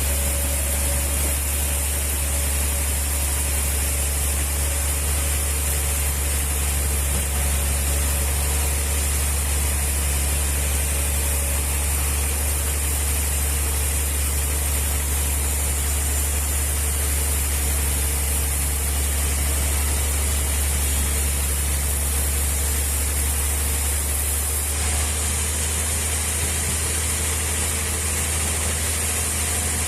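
Machinery running steadily, a constant low hum with a high hiss over it; the sound shifts slightly about 25 seconds in.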